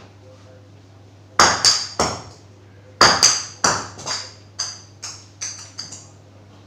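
A ball bouncing on a hard surface with sharp, ringing pings: three bounces, a pause, then a run of about nine that grow fainter as the ball settles.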